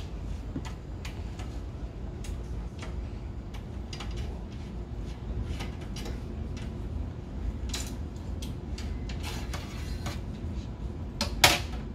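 Scattered light metallic clicks and taps from handling the steel slide rails and screws of a rack-mount LCD console drawer with a screwdriver, with one louder clank near the end, over a steady low background hum.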